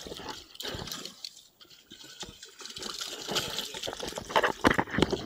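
Water splashing and sloshing in irregular bursts, with a cluster of sharp slaps about four to five seconds in.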